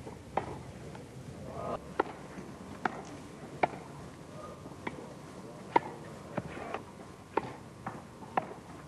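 Tennis ball struck back and forth with wooden racquets in a rally: a string of sharp pocks, roughly one a second, over the hiss of an old film soundtrack.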